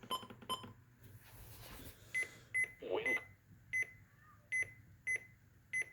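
Short electronic key beeps from weather radios being set up for an alert test: three quick beeps, then about seven single beeps at a higher pitch at uneven intervals. A brief hiss sounds a little after a second in.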